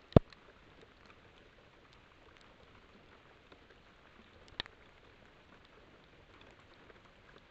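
A few sharp clicks or taps over a steady faint hiss from the trail camera's microphone: one loud click just after the start, another about four and a half seconds in, and a few faint ticks between.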